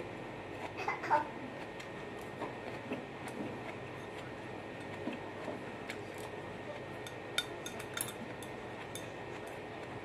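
Chopsticks clicking and scraping against a ceramic bowl while eating, in scattered small taps with a few sharper clicks near the end.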